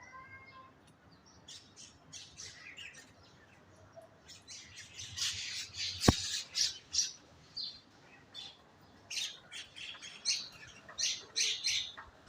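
Birds chirping: many short, high calls in quick runs, getting busier and louder about halfway through. One sharp click sounds about six seconds in.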